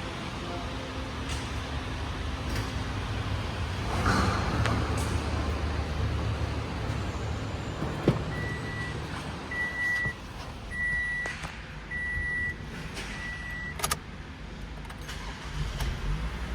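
A car engine runs with a steady low rumble. In the middle, five evenly spaced high beeps sound about a second apart, followed by a sharp click.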